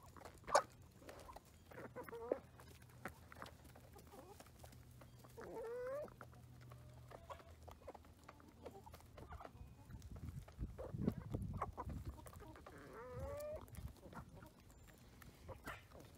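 Chickens clucking faintly, with a few drawn-out calls that rise in pitch, among scattered small clicks and knocks.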